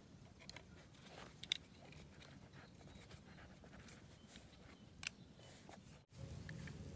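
Faint clicks and light knocks of plastic PVC pipe parts being handled and fitted together, three or so separate clicks over a quiet background. Near the end the background drops out for an instant and returns louder.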